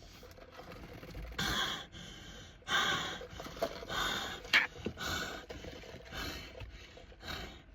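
A person breathing loudly in a run of about seven short noisy breaths and gasps, with a sharp click about four and a half seconds in.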